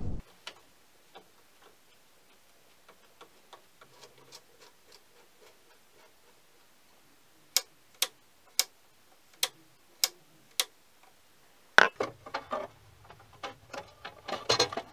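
Mini lathe's speed-control knob clicking as it is turned: six sharp clicks about half a second apart. Near the end, a louder knock, then clattering and rustling as hands handle the wiring in the lathe's control box.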